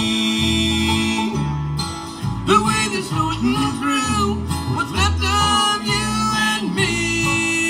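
A bluegrass band playing live, with acoustic guitar over a moving bass line.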